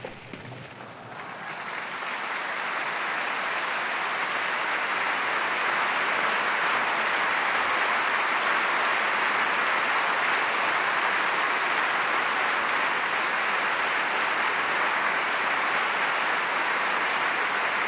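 Large audience applauding, swelling over the first couple of seconds and then holding steady.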